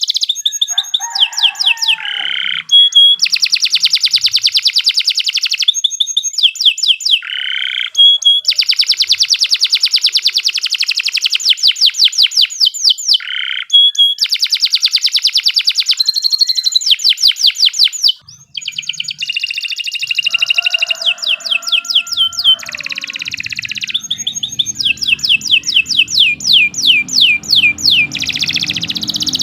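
Domestic canary singing a long, unbroken song: fast rolling trills and rapid runs of repeated sweeping notes, with only brief pauses between phrases. A low steady hum joins in underneath about two-thirds of the way through.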